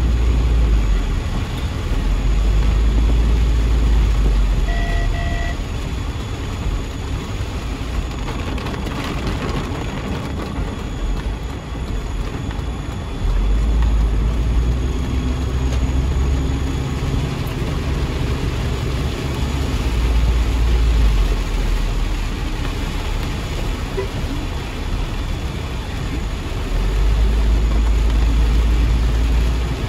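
Heavy rain falling on a car's roof and windshield, heard from inside the moving car, over a low rumble of engine and wet road that swells and eases in stretches. Two short beeps about five seconds in.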